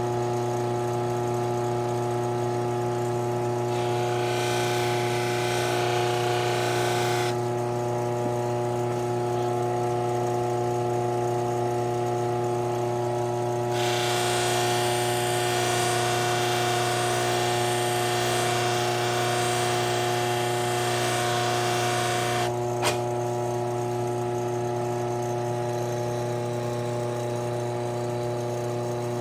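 Steel knife blade being worked against an abrasive, heard as two stretches of hissing friction, a short one about four seconds in and a longer one of about eight seconds midway, over a steady electric motor hum. A single sharp click follows the second stretch.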